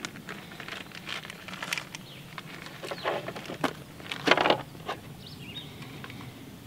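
Small metallic clicks of 9mm cartridges being pushed one at a time into a 10-round SCCY pistol magazine, with a couple of louder bursts of handling clatter midway.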